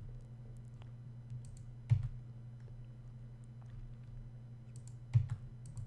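A few scattered clicks from a computer keyboard and mouse as text is edited, the loudest about two seconds in and a short cluster near the end, over a steady low hum.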